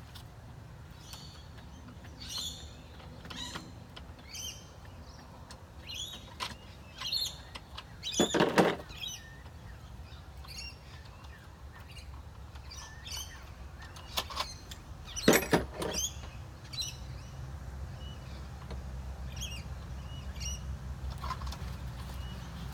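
Birds chirping on and off, with two louder clattering knocks about eight and fifteen seconds in, over a low rumble that grows louder toward the end.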